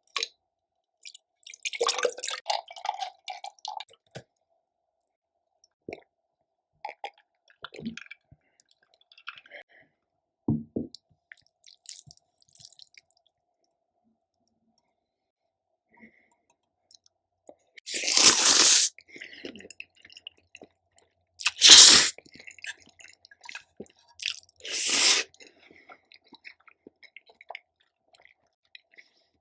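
Close-miked eating: chewing, squishing and crunching mouthfuls of instant black bean noodles and spicy kimchi in short, scattered bursts, with three louder noisy bursts a few seconds apart in the last third.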